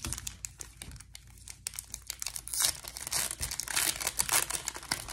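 Foil wrapper of a Pokémon Astral Radiance booster pack crinkling as it is torn open. The crackling grows louder about two and a half seconds in.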